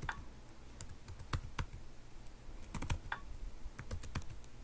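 Computer keyboard keys being typed: irregular single clicks and quick pairs of keystrokes with short pauses between them, as a file path is entered in a terminal.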